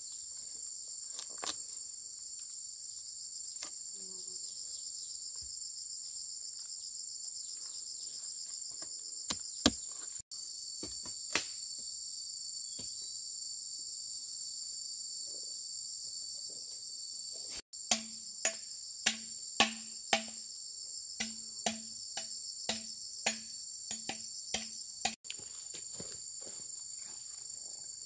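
A steady, high-pitched chorus of insects, with scattered sharp knocks. In the second half comes a run of about a dozen evenly spaced strikes, roughly two a second, each with a short ringing tone. The sound cuts out for an instant three times.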